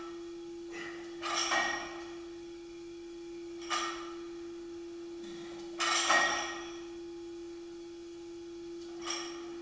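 Loaded barbell clanking with its plates rattling on the sleeves through repeated muscle snatches: short sharp knocks and longer clattering rattles, the loudest about six seconds in. A steady low hum runs underneath.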